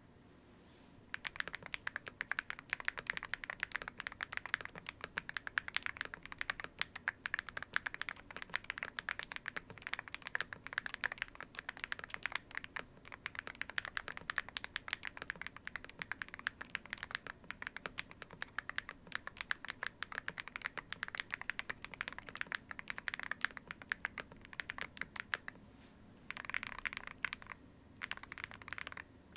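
Typing on a Geon Venom60HE custom mechanical keyboard with lubed HMX Gamer Fuel linear switches and PBT keycaps in a KBDfans Holy60 case: a steady run of rapid keystroke clicks that starts about a second in, with two quicker flurries of keystrokes near the end.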